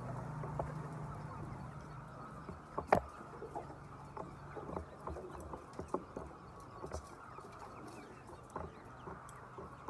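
Chickens clucking, with scattered clicks and one sharp knock about three seconds in, over a low hum that fades in the first couple of seconds.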